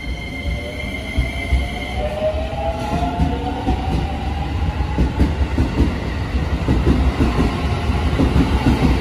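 Shin-Keisei N800 series electric commuter train pulling away from the platform and accelerating. A rising whine from the traction motors climbs over the first few seconds, over a growing rumble and knocking of wheels on the rails. A steady high tone cuts off about two seconds in.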